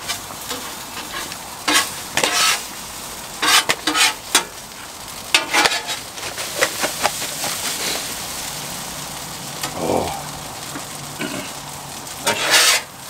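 Food sizzling on a flat-top griddle while metal spatulas scrape and turn it, in a series of short scraping strokes, the loudest near the end.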